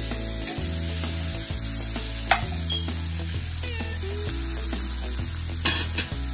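Butternut squash cubes sizzling in a frying pan while a metal slotted spoon stirs them, with a sharp clink about two seconds in and a couple more near the end. Background music with a low bass line plays underneath.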